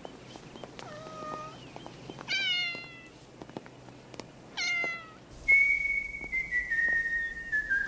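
An animal calls three times, each a short cry falling in pitch. About five and a half seconds in, background music begins with a held note that steps slowly downward.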